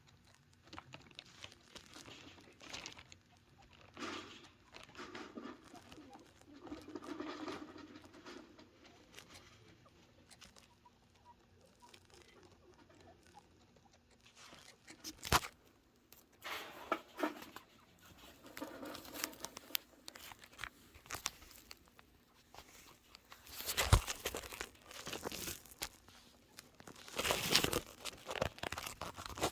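Baby angora chinchillas scrabbling and moving about, making irregular rustling, crinkling and scratching sounds with scattered clicks. There is a sharp knock about halfway through, and louder bursts of rustling near the end.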